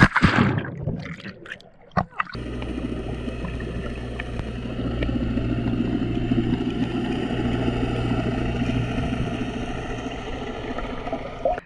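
A loud splash as a swimmer goes into the sea. After a short gap comes a steady, muffled underwater rumble and hiss with a low hum, picked up by a microphone under the water.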